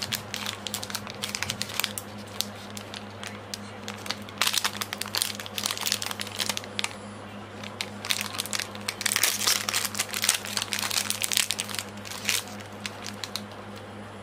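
Foil-lined plastic wrapper of a stick lollipop crinkling and crackling as fingers handle it and tear it open. The crackles come in bouts: at the start, from about four to six seconds in, and again from about eight to thirteen seconds in, over a steady low hum.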